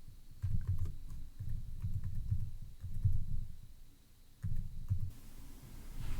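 Typing on a computer keyboard: scattered key clicks with dull low thuds in short runs, as a student ID and password are entered.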